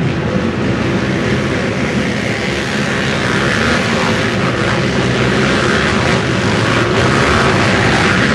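Pack of racing ATVs (quads) tearing past together, many engines running hard at once in a dense mass of engine noise that grows a little louder toward the end.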